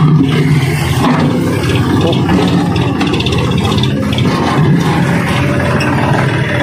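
Diesel engine of a John Deere tractor with a front loader, running steadily as the tractor drives forward over rough ground.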